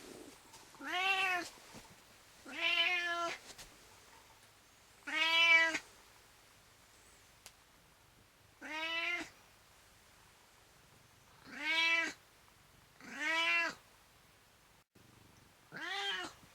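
Domestic cat meowing, seven drawn-out meows a few seconds apart, each rising and then falling in pitch.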